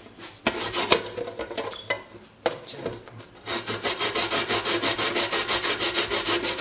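A peeled raw potato being grated by hand on a plastic grater, with rasping strokes. The strokes are uneven at first, then become quick and regular at about six a second from a few seconds in.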